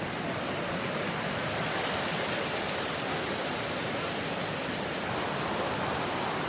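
Steady, even rushing noise with no pitch or rhythm, of the kind made by falling or running water or by wind.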